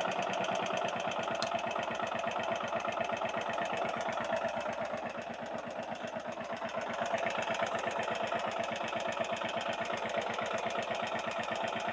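Honda Varadero 125's V-twin engine idling steadily with a fast, even mechanical beat, quite loud close up. The owner wonders whether the noise is the tappets.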